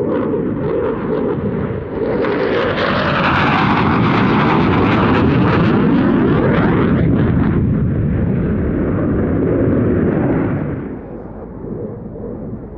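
Dassault Rafale fighter's twin Snecma M88 turbofans in afterburner during a display pass: loud jet noise with a crackling edge and a sweeping shift in tone. It grows louder about two seconds in and fades away from about ten and a half seconds.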